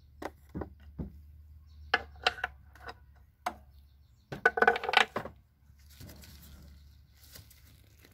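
Metal tools clinking and knocking under the hood as a 19 mm hex socket and ratchet are fitted onto the serpentine belt tensioner bolt: scattered sharp clicks, then a quick run of ringing metallic clanks about four and a half seconds in.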